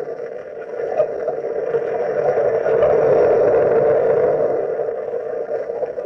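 A loud, steady rushing roar with no clear pitch, a sound effect in a 1940s radio drama, easing briefly at the start and again near the end.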